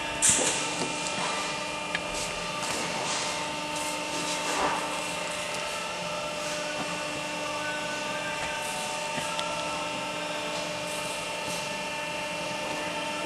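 Barwell ECO Plus rubber preforming machine running, with a steady hum of several constant tones under a hiss. A short, sharp burst of high hiss comes just after the start, a brief swell comes about four and a half seconds in, and there are a few scattered clicks.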